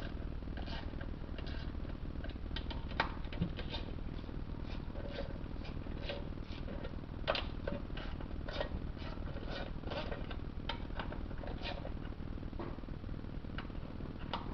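Irregular metallic clicks and clinks of hand tools and small bolts while the 10 mm oil-pan bolts are taken out of a BMW 5L40E automatic transmission, over a steady low hum. The sharpest clicks come about 3 s and 7 s in.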